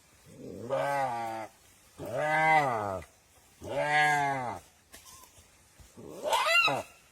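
A deer bleating four times, each call about a second long and arching up then down in pitch; the fourth call, near the end, is higher and more wavering.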